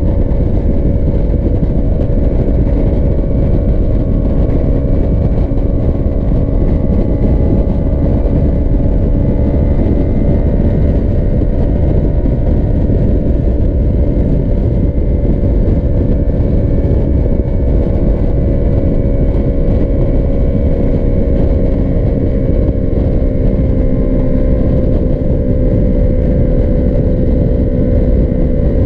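Sport motorcycle engine running at a steady cruising speed, its note holding nearly constant and sagging slightly in pitch through the middle, under a heavy low rumble of wind on the bike-mounted microphone.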